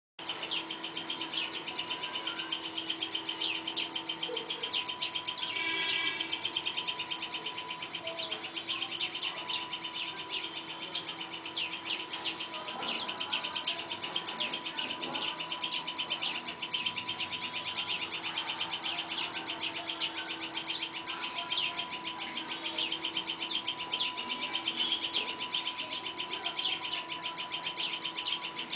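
Birds chirping: short, sharp, high calls every two or three seconds over a continuous rapid high-pitched trill.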